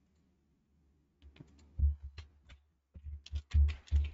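Typing on a computer keyboard: irregular key clicks with dull thumps, starting about a second in and coming faster near the end.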